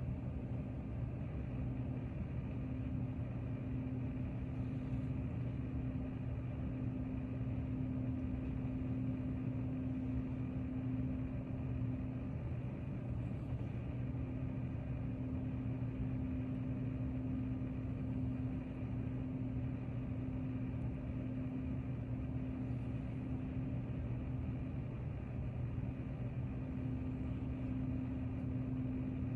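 Steady low mechanical hum with a constant droning tone and no change throughout.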